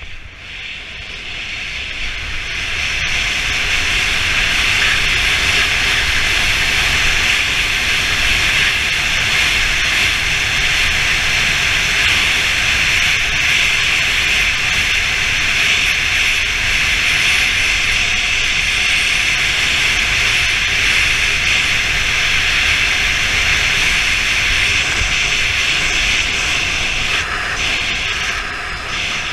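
Wind rushing over an action camera's microphone at high skiing speed, with the hiss of skis running on hard-packed snow. It builds over the first few seconds as the speed picks up, holds steady, and eases slightly near the end.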